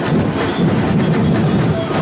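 Loud carnival parade music with a steady beat.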